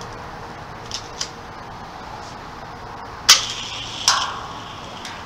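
A Hot Wheels dual launcher snapping as it fires two toy die-cast cars, then a second sharp clack under a second later as a car reaches the end of the orange plastic track and hits the cars piled there. A couple of light clicks about a second in come from the cars being set in the launcher.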